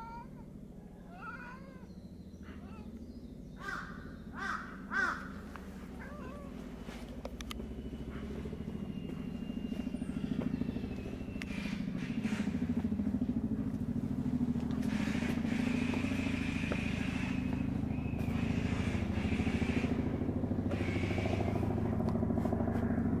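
Tabby cat meowing, a few short calls in the first five seconds or so, the last ones loudest. After that a steady low rumble builds up and grows louder through the rest.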